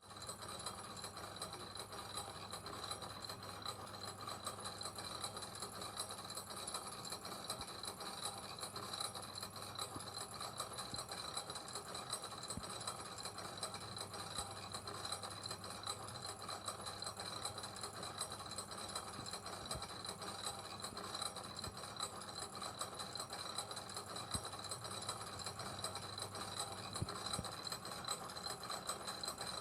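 Mechanical gears turning with a continuous, rapid, even clicking. A steady high tone runs under it.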